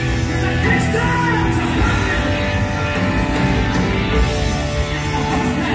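Loud live rock music from a full band with a drum kit.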